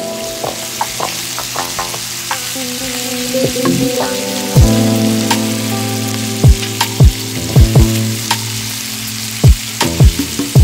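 Sliced bell peppers and onions sizzling in hot oil and being stirred, a steady frying hiss that starts suddenly, with the clicks of the utensil in the pan. Background music with deep falling bass hits plays over it and is louder at each hit.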